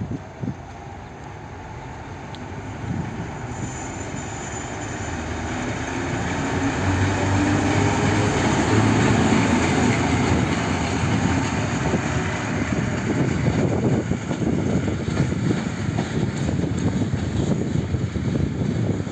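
ST44 (M62-type) diesel locomotive running on the line, its two-stroke V12 diesel engine getting steadily louder over the first half as it draws near, then staying loud.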